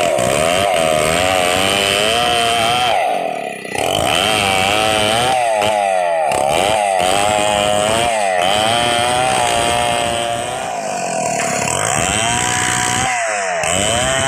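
Stihl 070 two-stroke chainsaw ripping lengthwise through a squared log, its engine note wavering up and down as the cut loads it. About three and a half seconds in the engine briefly drops off, then picks up again.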